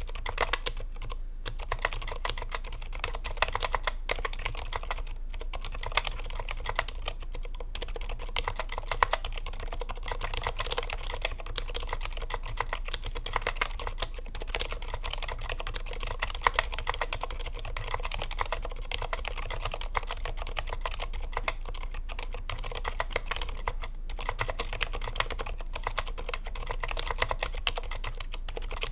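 Continuous typing on a Tokyo60 V4 mechanical keyboard fitted with stock Gateron Aliaz Silent 60g silent tactile switches, with a bandaid mod and lubed stabilizers, on a cloth desk mat. The keystrokes come in a fast, irregular stream with a few brief pauses.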